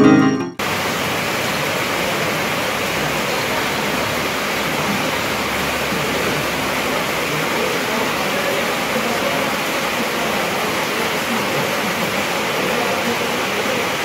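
Steady hiss of light rain falling, after a guitar jingle cuts off about half a second in.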